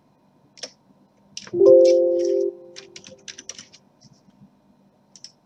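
Computer keyboard keystrokes, a quick run of clicks, with a short computer alert chime about a second and a half in that rings for about a second and fades; the chime is the loudest sound.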